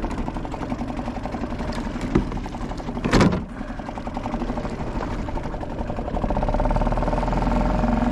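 Small gasoline motor driving the kayak, running steadily with a fast, even pulse. It runs a little louder from about six seconds in. A short, loud burst of noise comes about three seconds in.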